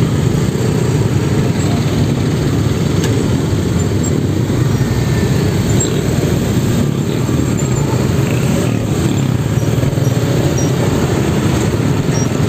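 Road traffic in slow, congested stop-and-go traffic: motorcycle and car engines running close by, a steady low rumble.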